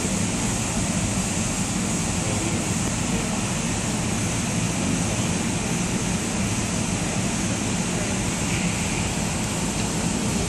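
Steady rushing ambient noise of a large indoor arena, even throughout with no distinct events.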